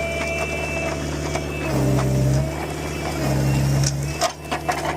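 Heavy diesel road-construction machinery running steadily, its engine note swelling louder twice under load.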